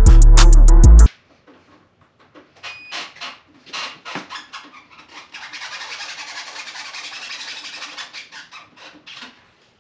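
A hip-hop beat cuts off about a second in, then a ratchet tool clicks as the star bolts holding the motorcycle windshield are loosened: scattered clicks and knocks, then a fast, even run of clicking for about three seconds.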